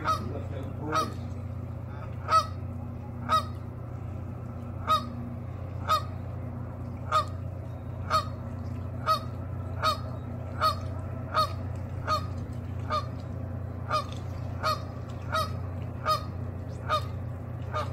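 Canada geese honking over and over, a short honk about every second, with a steady low hum underneath.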